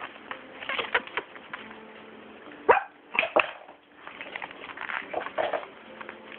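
A Papillon puppy moving about and playing, with scuffles and a few sharp knocks; the loudest knock comes a little under three seconds in, followed by two more soon after.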